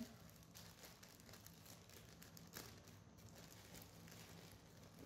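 Faint crinkling of clear plastic parts bags being handled, with a few soft ticks.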